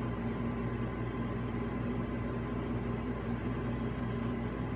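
Steady hum of a running appliance or fan, with a few faint steady tones in it and no change over the few seconds.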